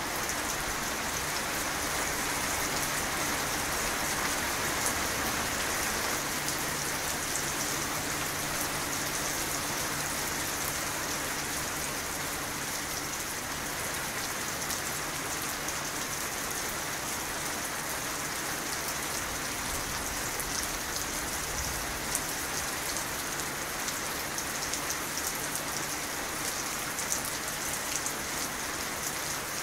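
Steady rain falling, an even hiss with scattered individual drop ticks.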